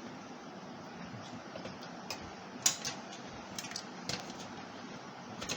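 Short sharp clicks and knocks of metal parts as a PC power supply unit is set into the case, half a dozen taps over a steady hiss, the loudest about halfway through.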